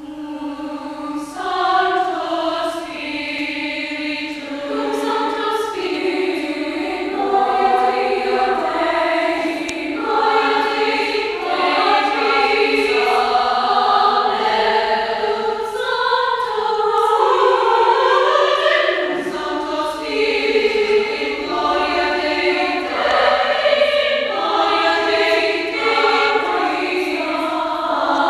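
A choir of girls' and young women's voices singing in parts, holding long notes, in a church.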